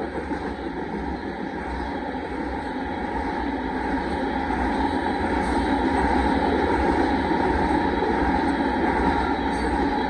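Freight train's gravel cars rolling past on the rails: a steady rumble and wheel noise that grows gradually louder.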